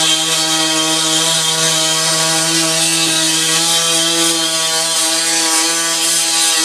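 A loud, steady machine hum at one unchanging pitch with many overtones.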